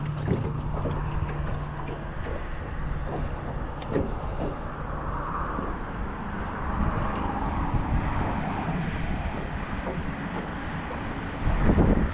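Steady engine drone with a low hum whose pitch shifts slightly about halfway through, and a few small knocks.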